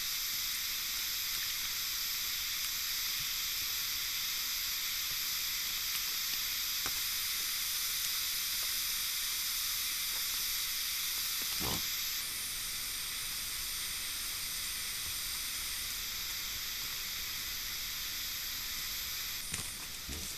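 Steady high-pitched chorus of night insects in the forest, like a sizzling hiss, with a faint knock near the middle and another near the end, likely from the wild boar moving at the wallow.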